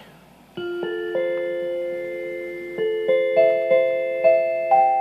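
Maas-Rowe electronic carillon bell tones played from the console keyboard: a slow melody of single struck notes, each ringing on under the next, starting about half a second in and climbing in pitch overall.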